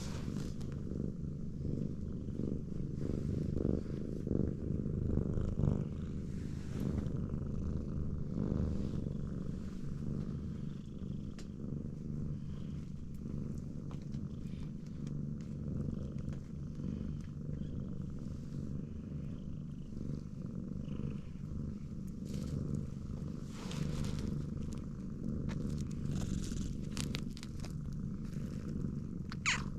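Domestic cat purring steadily throughout, with faint clicks above it and a brief sharp sound near the end.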